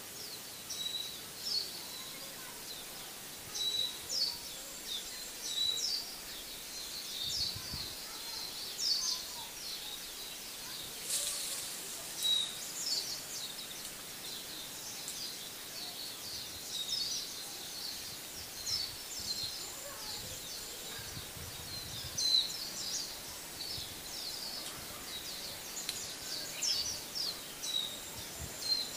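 Small birds chirping: many short, high calls, several each second, over a steady faint background hiss.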